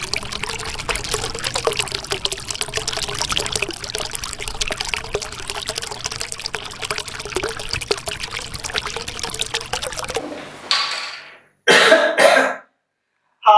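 A steady crackling hiss full of small clicks, then, about ten seconds in, liquid poured from a bottle into a glass, rising in pitch as it fills, followed by a loud cough.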